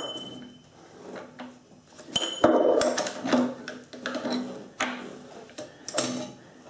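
Metal clicks and knocks from the quill return spring housing of a South Bend drill press head being turned and adjusted by hand. Two of the knocks ring briefly with a high metallic tone, and a run of clattering comes about halfway through.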